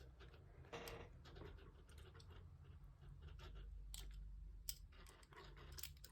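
Faint metallic clicks and scraping of a lock pick working the pin stack inside a lock's keyway, with a few sharper clicks about a second in and again near four and five seconds.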